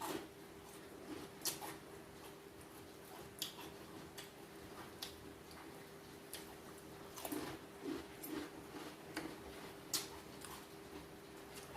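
Mouth sounds of people eating: chewing and smacking with sharp, irregular crunchy clicks every second or so, over a faint steady hum.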